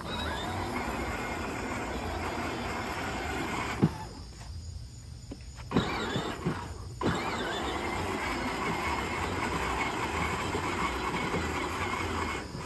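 Battery-powered ride-on toy Jeep's electric motors and plastic gearboxes running as it drives, a steady whine that drops out for about two seconds around four seconds in and then starts again, with a few sharp clicks around the pause.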